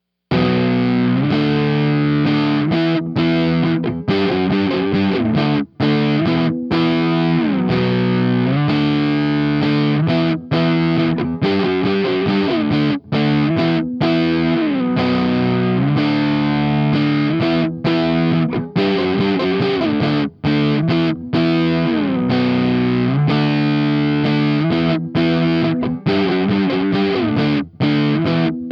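Electric guitar chords heavily distorted by the POWER BABY prototype board, run at full gain with presence at minimum and heard through a Marshall 4x12 cabinet impulse response. The chords ring out with frequent short stops and slides from one chord to the next.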